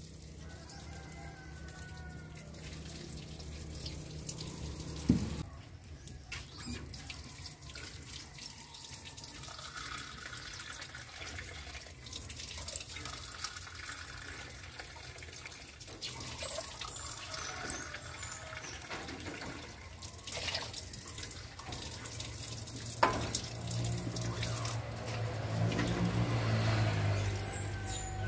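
Water sloshing and pouring as rice is washed in a metal basin and water is poured from a cup into a cooking pot. A few sharp knocks of metal pot and lid come through.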